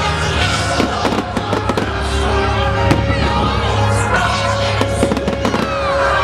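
Fireworks bursting and crackling in quick, irregular bangs over music playing loudly, with a few whistling glides mixed in.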